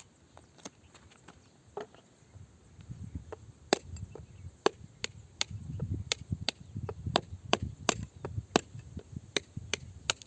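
Hand digging tool repeatedly striking rock with sharp, ringing blows, faint at first and then louder at about two to three strikes a second, over low scraping between the blows.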